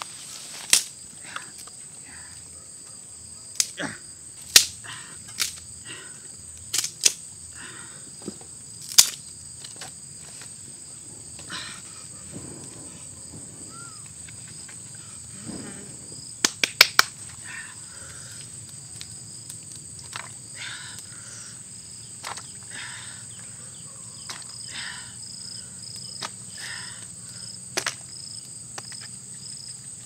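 Insects buzzing steadily at two high pitches, with scattered sharp clicks and knocks, including a quick run of three about seventeen seconds in.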